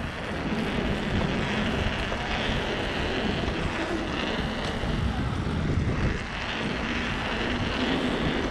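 Steady rushing noise of a mountain bike ride over paving stones: wind buffeting the microphone and the tyres rolling on the pavers.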